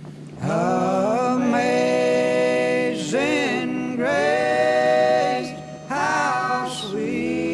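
Background music: a voice singing slow, long-held phrases.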